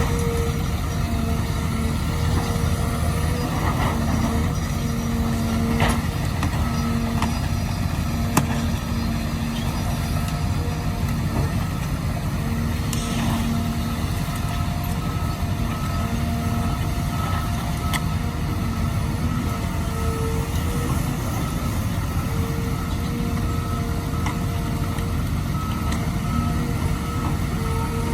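Heavy excavator's diesel engine running steadily under load, with tones that come and go over it. A backup alarm beeps at an even pace in the later part, and there are a few sharp knocks about six and eight seconds in.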